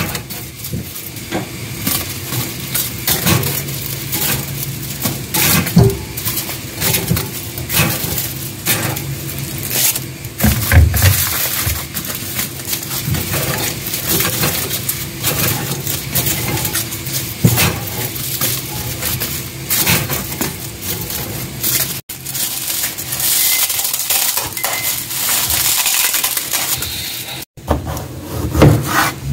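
Dry gopchang-gim laver sheets crackling and rustling as they are handled and toasted over a gas burner, with sharp crinkly clicks throughout. Near the end a kitchen knife chops radish on a plastic cutting board.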